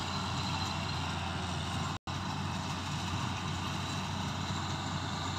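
CLAAS tracked combine harvester running steadily as it harvests a ripe rice field: an even engine and machinery drone with a low hum. The sound cuts out for a split second about two seconds in.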